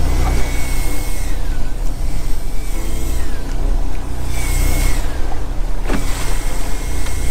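Fishing boat's engine running with a steady low rumble, with a high thin whine that sags in pitch every second and a half or so, and a sharp knock about six seconds in.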